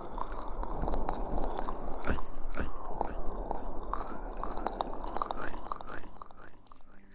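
Fingers rubbing and pressing aloe vera gel over a microphone ear in an ASMR ear massage. It makes a steady wet, sticky squishing with many small clicks and pops, and it thins out near the end.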